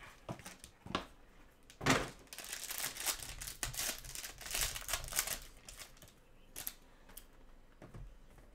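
Sealed foil pack wrapper crinkling and tearing as it is pulled open, for about three seconds, after a few clicks and a sharp snap from the cardboard box about two seconds in; quieter rustling of the wrapper and cards near the end.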